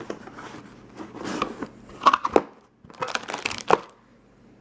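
Packaging rustling and crinkling in hands as a box of engine valves is unpacked, with a few sharp clicks and taps.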